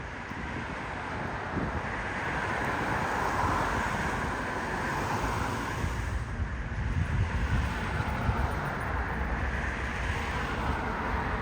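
City street traffic passing as a steady rumble, with wind buffeting the microphone.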